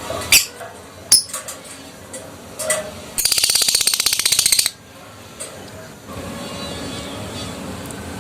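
Adult lovebird giving a few sharp chirps, then a fast rattling chatter trill (the 'ngekek') lasting about a second and a half.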